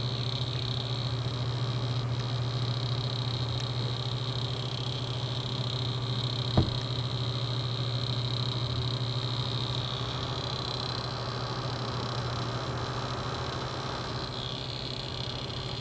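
A custom-built desktop PC making its fault noise: a steady low hum under a high-pitched whine that wavers and shifts in pitch, with a single click about six and a half seconds in. The noise comes mainly under gaming load and stays the same with two different power supplies fitted.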